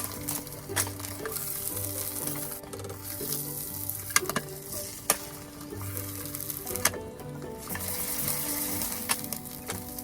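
Food sizzling as it fries in a pan, a steady hiss broken by scattered sharp pops and clicks.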